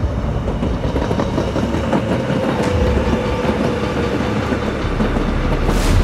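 Gyeongui-Jungang Line electric commuter train running along the tracks: a steady rail rumble and wheel clatter, with a faint whine in the middle and a brief rushing swell near the end.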